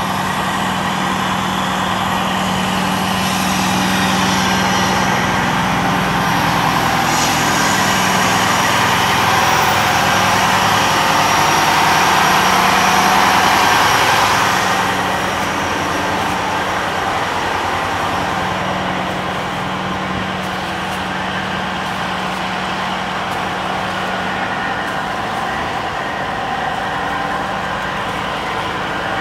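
Fire truck engine running with a steady low hum. A broader noise swells through the first half and drops back about fifteen seconds in.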